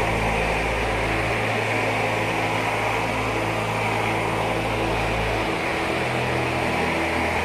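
Computer cooling fans running: a steady whir with a low hum under it, the hum's pitch shifting a couple of times.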